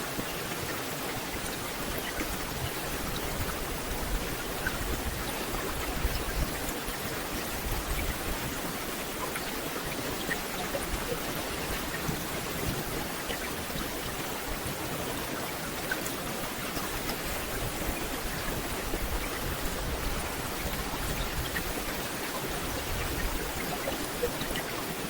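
Steady rain falling on a forest canopy, an even hiss of drops on leaves with scattered small drip ticks.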